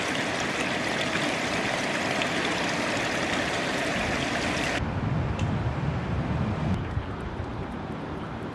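Water running over the rim of a shallow reflecting pool: a steady, even rush that cuts off abruptly a little under five seconds in. After that, low wind rumble on the microphone.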